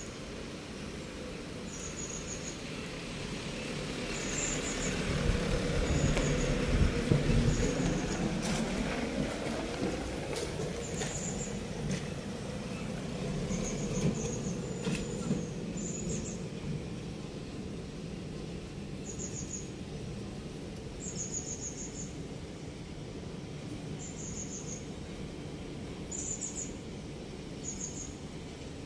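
Outdoor ambience: a small bird gives short, high chirps every second or two, and a vehicle passes, swelling to its loudest about six to eight seconds in and then fading.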